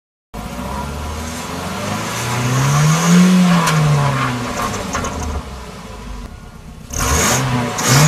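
Car engine revved with an aluminium exhaust turbo whistle fitted in its tailpipe. The engine note rises and falls about three seconds in and climbs again near the end, with a high whistling hiss from the exhaust on each rev.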